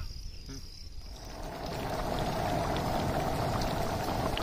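Thick goat-intestine gravy bubbling at a boil in a kadai over a wood fire, a steady bubbling with small pops that swells in about a second in.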